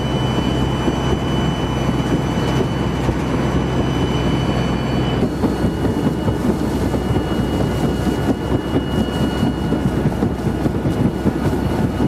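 Ultra Heavy-lift Amphibious Connector prototype running afloat: a loud, steady rumble of its drive and tracks churning through the water, with splashing spray. About five seconds in the steady hum drops away, leaving a rougher, uneven churning.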